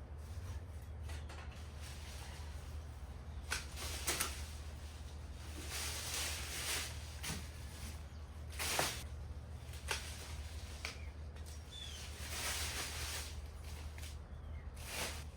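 Hand pruning shears snipping mulberry branches: several sharp snips, the loudest about nine seconds in, between stretches of rustling leaves.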